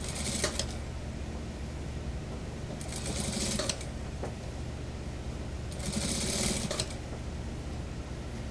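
Industrial sewing machine stitching a seam through suit fabric in three short runs, each about a second or less, near the start, in the middle and about two-thirds through. A steady low hum runs underneath.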